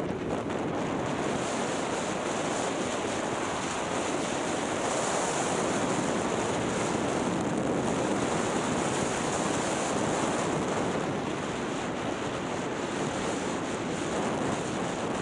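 Steady rushing hiss of skis sliding over groomed snow, mixed with wind blowing across the microphone as the skier runs downhill.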